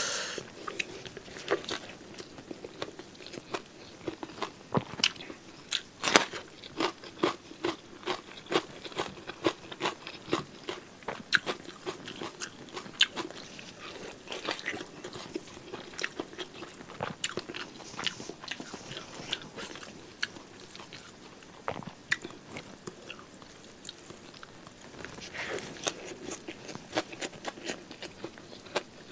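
Close-miked eating: biting into and chewing a mouthful of beef tongue with rice and sambal, with many sharp wet crunches and clicks.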